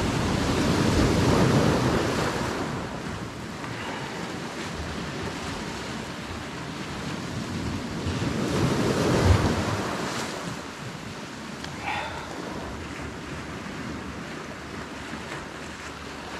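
Small waves washing onto the shore, surging twice, with wind buffeting the microphone.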